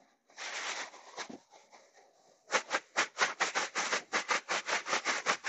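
A plastic bag rustling, with a short crinkle early on and then rapid rhythmic shaking, about five shakes a second, from about halfway in. The sound is chicken thighs being shaken in a bag of seasoned flour to coat them.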